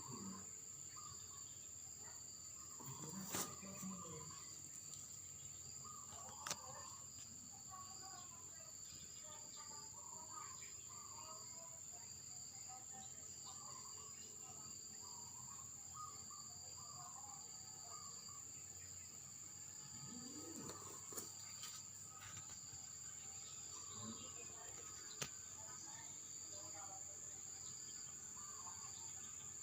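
Crickets droning steadily on a high pitch, with many short bird chirps throughout and a few sharp clicks.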